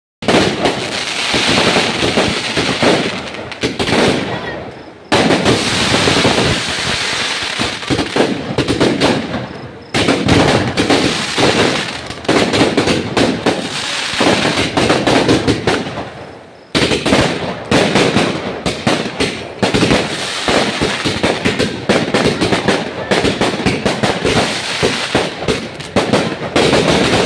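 Ground firework fountain crackling without a break in a dense, rapid stream of pops. It dies down three times and surges back sharply each time.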